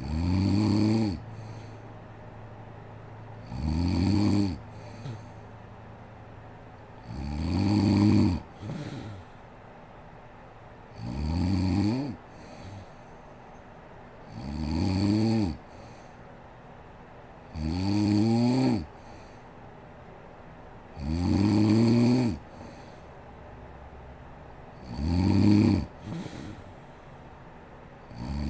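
A sleeping woman snoring loudly and regularly, about one snore every three and a half seconds, eight in all; each snore is about a second long and rises then dips slightly in pitch, and several are followed by a short, quieter breath.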